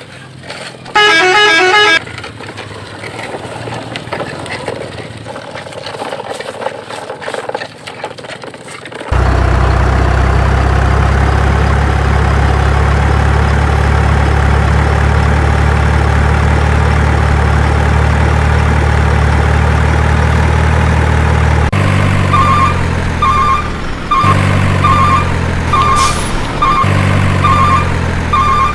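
Truck sound effects: a brief tune-like horn toot about a second in, then a loud steady truck engine drone for about twelve seconds, followed by repeated reversing beeps over a pulsing engine.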